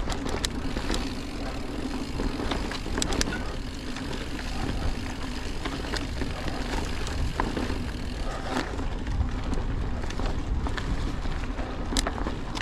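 Mountain bike being ridden along a dirt trail: a steady low rumble of wind and tyre noise, with scattered sharp rattles and clicks from the bike.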